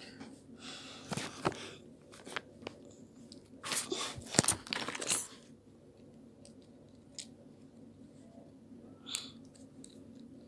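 Crinkling and rustling of a small plastic snack packet being handled and pulled at by hand, in short bursts, the longest and loudest about four to five seconds in.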